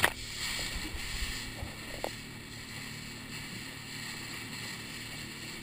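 Rubber boat under way with its engine running steadily under a constant rush of water. A sharp slap of spray against the bow comes right at the start, and a smaller knock about two seconds in.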